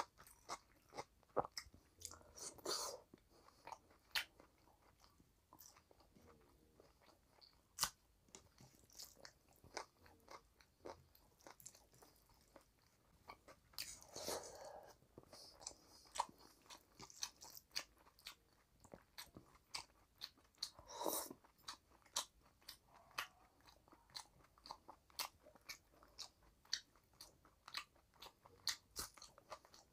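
Wet chewing and lip smacking of a person eating rice and chicken curry by hand: many short, sharp mouth clicks, with louder, longer smacking mouthfuls about 3, 14 and 21 seconds in.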